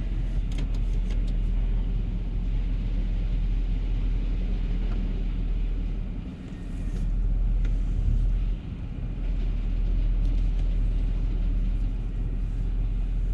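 Pickup truck engine idling and creeping at low speed, a steady low rumble heard inside the cab, with a few faint clicks in the first couple of seconds.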